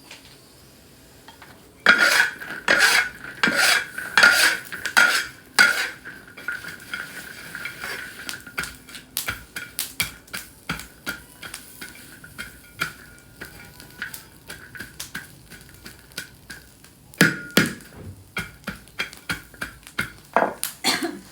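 Metal spatula striking and scraping a wok while stir-frying: a run of hard clangs starts about two seconds in, with a ringing tone that hangs on after them, then lighter clinks, and another few hard clangs near the end.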